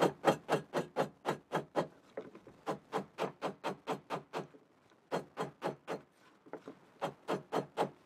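Tight-fitting birch bark lid being worked back and forth onto a birch bark container, bark rubbing on bark in quick, even strokes, about six a second, in several runs with short pauses.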